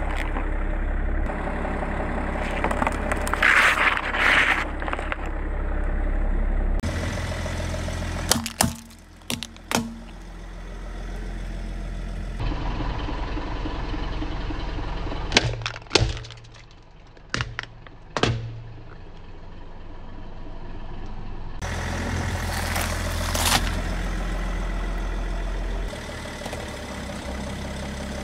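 A car engine idling while the car's tyre rolls over and crushes plastic objects on asphalt. There is a long crunching squeeze about three seconds in, sharp cracks and snaps of breaking plastic a few times in the middle, and another crunch near the end.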